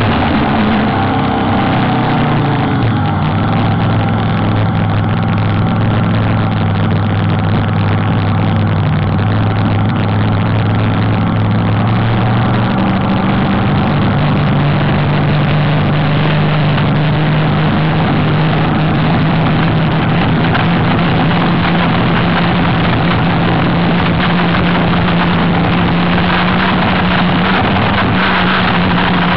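UL-class race hydroplane's engine running loud and steady. Its pitch steps up about twelve seconds in and holds higher.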